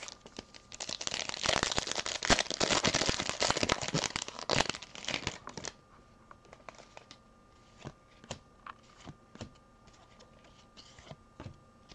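Foil trading-card pack wrapper crinkling as it is opened, a dense crackle for about five seconds. Then the cards are handled, with scattered soft clicks and taps.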